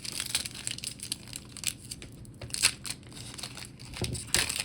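A foil Disney Lorcana booster pack wrapper being torn open and crinkled: a run of irregular crackles, with louder bursts about two-thirds of the way through and near the end.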